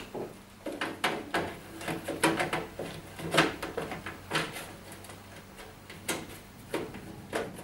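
Irregular light clicks and knocks of plastic and metal as a washing machine door lock is held in place and screwed back onto the front panel.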